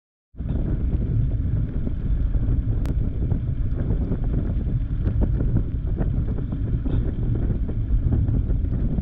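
Steady rush of wind on the microphone over the low rumble of a Bajaj Dominar 400 motorcycle riding at about 32 km/h. It cuts in suddenly just after the start.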